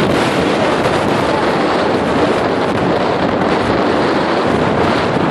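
Gale-force wind buffeting the microphone: a loud, steady rush of noise without a break.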